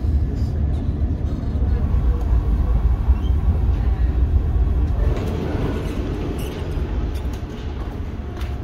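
Passenger train running, heard from inside the carriage: a steady deep rumble of wheels and running gear that gives way to a lighter rushing noise about five seconds in.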